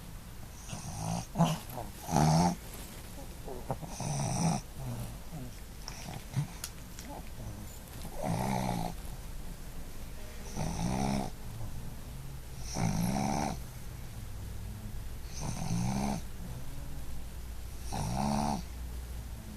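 Boston Terrier snoring in her sleep, a snore on each breath roughly every two to three seconds. The two loudest, sharpest snores come about one and two seconds in.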